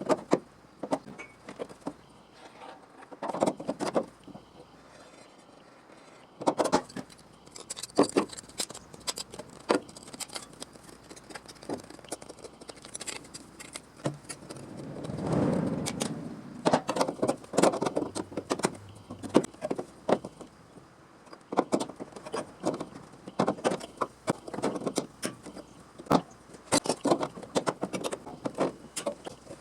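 Irregular metallic clicks, taps and clinks from hand work on sheet steel, in scattered clusters, with a brief swell of rougher noise about halfway through.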